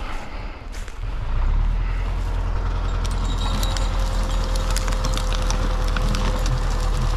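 Tractor engine coming up to a steady, heavy run about a second in, as for a winch pull. Over it come many sharp cracks and snaps of wood and branches, and a thin steady whine joins partway through.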